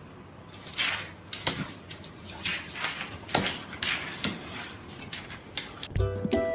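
A dog making a run of short, noisy sounds, two or three a second. Music comes in near the end.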